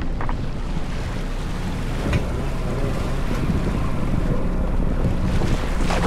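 Crab fishing boat's engine running steadily, with water rushing and splashing along the hull and wind on the microphone; a couple of short knocks.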